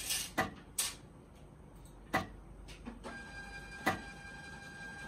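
Zebra ZT400-series industrial label printer running its RFID calibration. It gives several sharp clicks at irregular intervals, and from about three seconds in a steady motor whine as it feeds the label stock.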